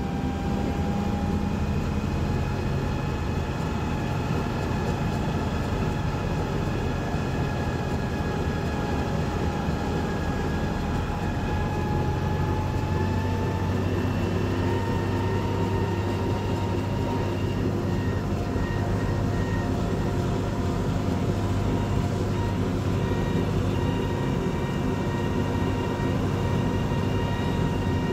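Mercedes-Benz MB-trac 1300 tractor's six-cylinder turbo diesel running at steady road speed, heard from inside the cab. A high whine runs over the engine note and steps up slightly in pitch about halfway through.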